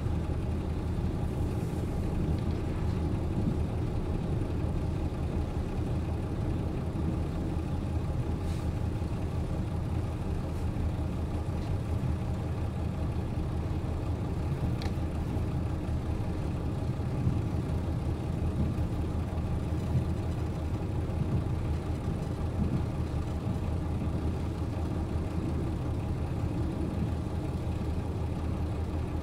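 JR Hokkaido KiHa 40 series diesel railcar's engine idling steadily, an even low drone while the railcar stands still.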